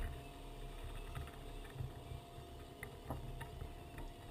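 Water and wind rumbling against a plastic kayak at sea, with a thin steady hum and a few faint ticks about halfway through.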